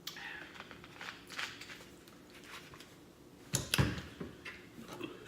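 Close-up sounds of drinking Coke and handling the drink, with small noisy sips and clicks, then one short, loud, low sound about three and a half seconds in.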